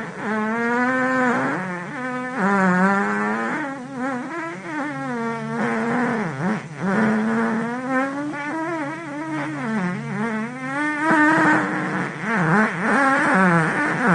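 A run of long fart sound effects, one after another with short breaks between them, each pitched and wobbling up and down in pitch.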